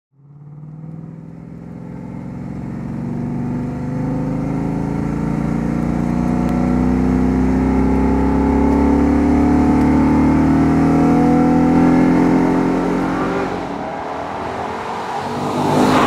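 Ford Mustang's naturally aspirated V8 running as the car approaches and passes, its pitch slowly rising as it grows louder, then dropping away as it goes by about 13 seconds in. A brief rush of noise comes at the very end.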